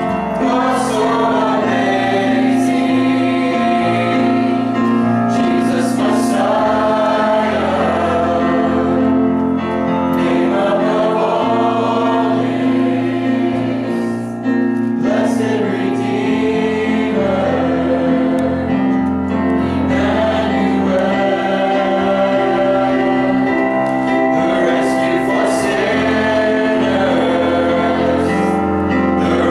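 Christian worship song: voices singing over sustained chords, with a bass line that changes every few seconds.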